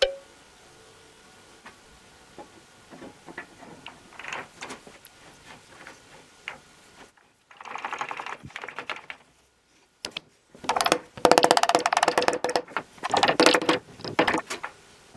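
Ratchet wrench on a socket extension clicking rapidly in bursts as it runs bolts into the flange of an aluminium tail rotor gearbox housing. Before that, a few light metal clinks from parts being handled.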